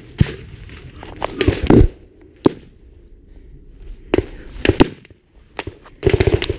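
Loud gunfire: scattered single shots and short bursts, ending in a rapid burst of automatic fire near the end.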